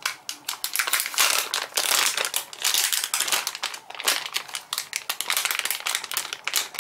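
Metallic anti-static bag crinkling and crackling steadily as it is handled in the hands, with many irregular small crackles.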